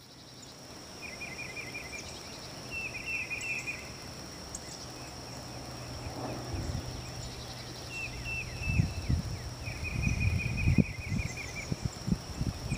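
Outdoor pond-side ambience: a steady high insect drone, with repeated second-long bursts of short, quick chirping calls. From about eight seconds in, a low, gusty rumble on the microphone grows louder.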